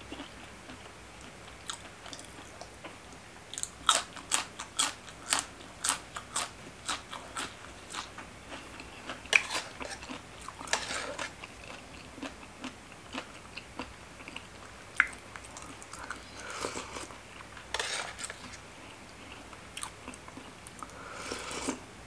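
Close-miked chewing of a mouthful of spicy Thai seafood pounded salad (tam pa thale), with crisp crunches coming in quick runs. The crunches are densest about four to eight seconds in, and softer, wetter chewing follows later.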